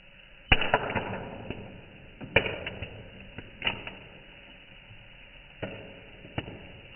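Popcorn kernels popping one at a time: about seven sharp, irregularly spaced pops, each with a short fading tail, the loudest near the start.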